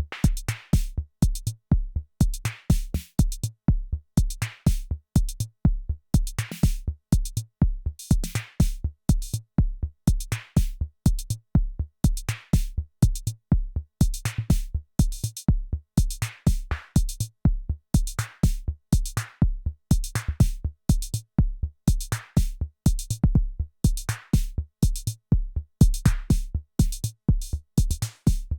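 Arturia DrumBrute Impact analog drum machine playing a sequenced beat: a steady, repeating pattern of deep kick-drum hits under fast hi-hat ticks, with snare-like noisy hits every second or two.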